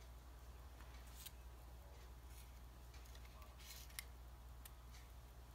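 Near silence: a low steady room hum with a few faint clicks and rustles from fingers twisting wool fibres onto cloth-covered floral wire.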